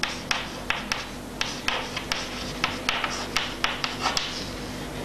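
Chalk writing on a chalkboard: short scraping strokes and frequent sharp taps as the chalk meets the board, at an irregular pace.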